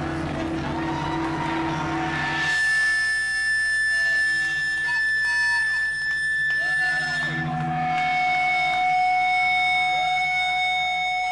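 Electric guitar amplifier feedback at the end of a live metal song: after a low chord rings for about two seconds, a steady high whine is held, then changes to a different pair of steady tones about seven and a half seconds in, over a low amplifier drone.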